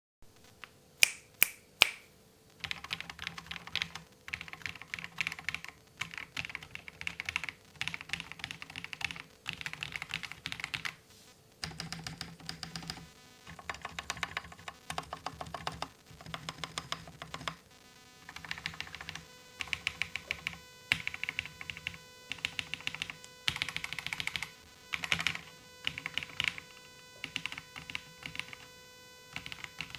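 Dark Project Alu87a mechanical keyboard with G3MS Zircon Speed switches being typed on. Three sharp single key presses come about a second in, the loudest sounds here, then bursts of fast typing with short pauses between them.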